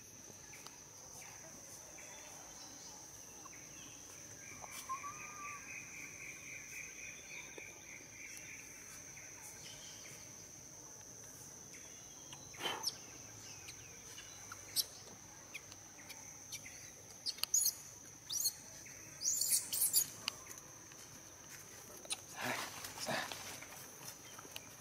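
Forest ambience: a steady high insect drone throughout, with a bird trilling for several seconds about five seconds in. In the second half come scattered clicks and rustles of dry leaves, and near the end rustling footsteps of a macaque walking across the leaf litter.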